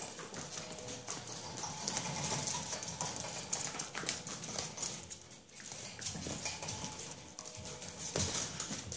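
Chihuahua puppies scampering and tussling on the floor of a wire playpen: a steady run of small clicks and scuffles.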